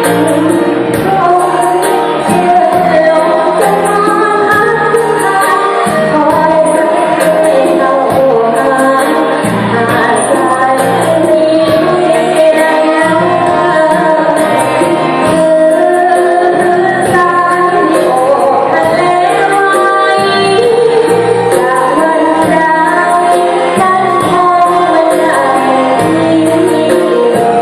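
A singer performing a song over loud musical accompaniment, with a steady beat.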